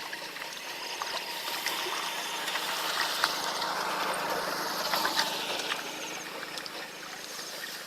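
Water trickling, with scattered small clicks and splashes; it swells a little about two to five seconds in.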